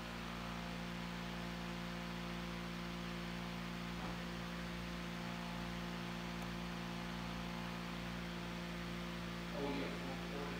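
Steady electrical mains hum, a low buzz with several steady overtones, over a faint even hiss.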